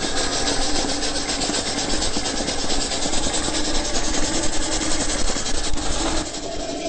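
Moped built up as a steam locomotive running off down the road, giving a fast, even chuffing with a loud hiss like a steam engine under way; the sound drops somewhat near the end.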